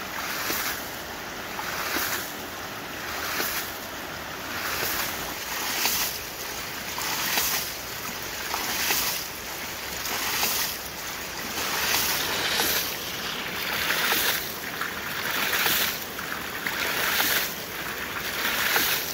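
Hydraulic ram pump with a PVC body and stainless-steel air chamber running, its waste valve cycling about once every second and a half. Each cycle sends a surge of water gushing out of the valve, so the rushing swells and falls in a steady rhythm.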